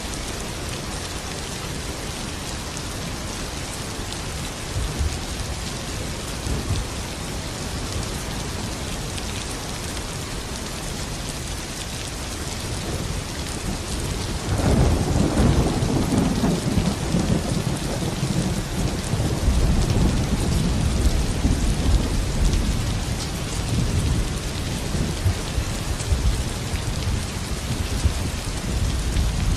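Steady rain falling, with a long roll of thunder that breaks in about halfway and rumbles low until the end.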